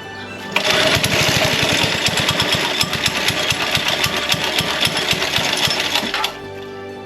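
Briggs & Stratton 3 hp single-cylinder engine on a vintage go-kart firing and running loud and rapid for about five seconds, starting about half a second in and stopping about six seconds in. Music plays underneath.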